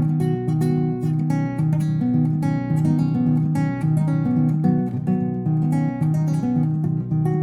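Acoustic guitar music: plucked notes in a steady, repeating pattern.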